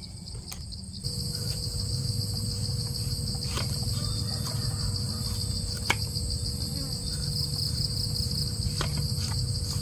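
Insects calling in a steady high-pitched chorus, with a few sharp knocks of a knife chopping through pumpkin onto a wooden chopping block.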